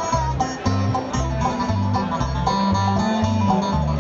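Bluegrass band playing an instrumental break, with banjo and guitar picking over a bass line that steps steadily between low notes.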